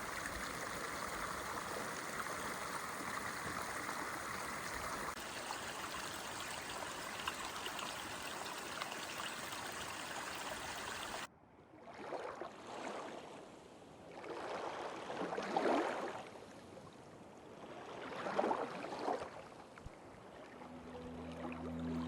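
Running water from a mountain stream, a steady rushing hiss. After a sudden cut about eleven seconds in, softer water sounds swell and fade about every three seconds, and music comes in near the end.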